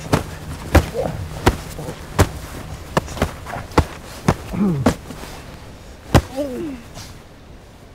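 A boy's fists thudding again and again on a padded winter jacket as he hits out, about nine irregular blows that stop about six seconds in. Short falling cries come between the blows.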